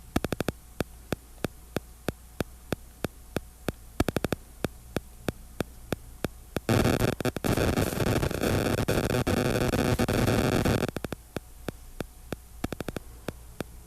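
Electronic noise: a steady hum with sharp clicks about three times a second, and a loud burst of hissing static from about seven to eleven seconds in.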